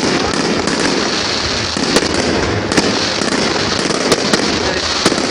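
Fireworks going off: a dense, continuous crackling with a few louder sharp bangs through it.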